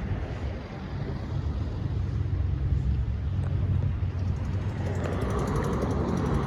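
Street traffic: a car passing, a low rumble that swells in the middle, followed by tyre hiss on the road near the end.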